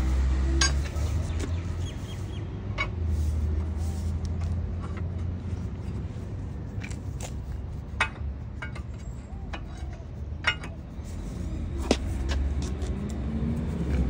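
Metal bar knocking and clinking against a steel storm-drain grate, about half a dozen sharp strikes spread out, over a steady low rumble.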